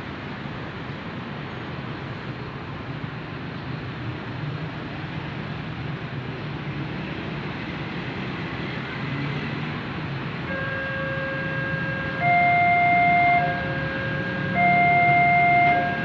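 Motorcycles and road traffic pass over a railway level crossing. About ten seconds in, the crossing's electronic warning alarm starts, switching back and forth between a lower and a louder higher tone about every second. The alarm signals that a train is approaching.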